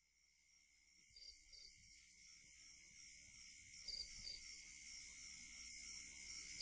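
Near silence: from about a second in, a faint hiss slowly rises, with a steady high tone and soft, scattered high chirps.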